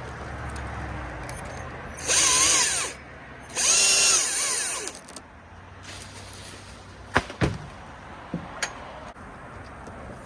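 Chainsaw run in two bursts of about a second each, its pitch dipping and recovering as it bites into a limb. A few sharp knocks follow.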